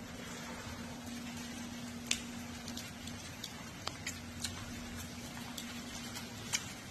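Quiet light rain and dripping water: a steady hiss with scattered sharp drops, the clearest about two seconds in and near the end, over a low steady hum that is clearest in the first three seconds.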